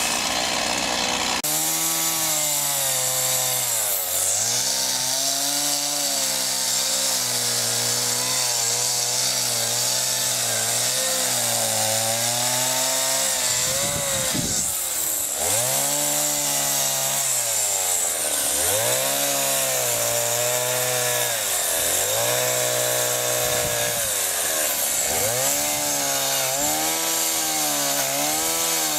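Chainsaw running at high revs while carving wood, its engine pitch repeatedly dropping and climbing back every couple of seconds as the chain is worked into the timber.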